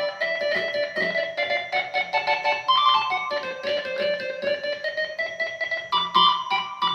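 Yamaha YC-20 combo organ playing a quick melody of short, detached notes over a repeated low accompaniment.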